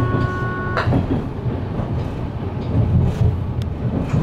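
Cabin running noise of the Toyama–Tateyama double-decker express electric train under way: a steady low rumble of wheels on track, with a few light clicks near the end. A steady high hum in several pitches cuts off about a second in.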